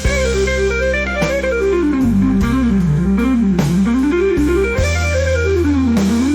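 Instrumental blues music: a guitar plays quick runs of notes up and down over a steady bass line.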